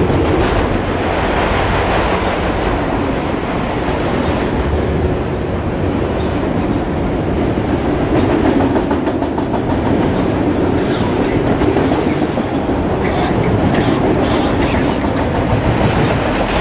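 Freight train of enclosed autorack cars rolling past at close range: a steady rumble and clatter of steel wheels on the rails, with occasional sharper clicks in the second half.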